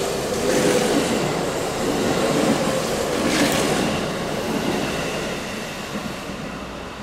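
A train running past on the rails, with a steady rumble and clatter of wheels and a couple of sharper clanks, slowly dying away near the end as it moves off.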